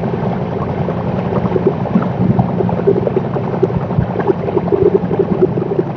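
Express train's coaches running through the station at speed, about 105 km/h: a steady, dense rumble of wheels on rail with rapid clicking, mixed with the rush of air.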